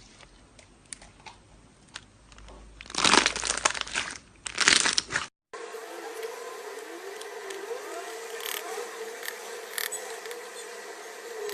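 Slime being squeezed and pressed by hand, giving two loud bursts of crinkling crackles. After a cut, a quieter stretch follows with a steady low hum and a few faint clicks.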